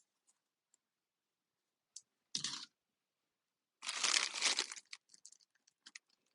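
Salad packaging being handled and opened: a short crinkle a little over two seconds in, then a longer, louder spell of crinkling and tearing around four seconds in, followed by a few small clicks and rustles.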